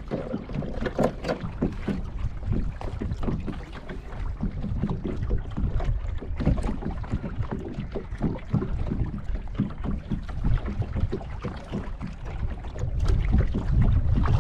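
Small waves lapping and slapping irregularly against a kayak's hull, with wind rumbling on the microphone.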